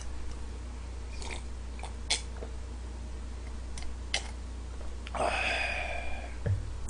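A man drinking red wine from a glass: small sipping and swallowing clicks, then a breathy exhale of about a second, and a soft knock near the end as the glass is set down. A steady low hum runs underneath.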